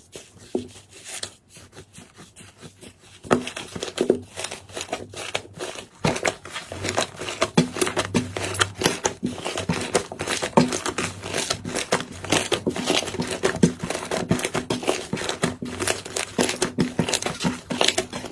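Hands squeezing, pulling and stretching a large mass of fluffy slime: a dense run of sticky crackles, pops and tearing sounds, louder from about three seconds in.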